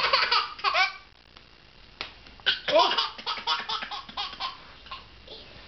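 A baby laughing in two bursts of quick, high-pitched giggles, with a single sharp knock about two seconds in.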